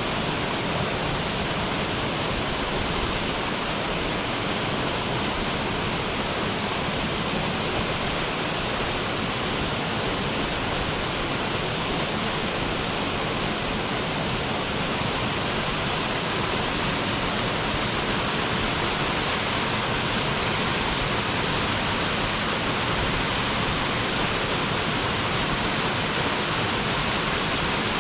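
Waterfall pouring steadily into its plunge pool: a constant, even rush of falling water with no change in level.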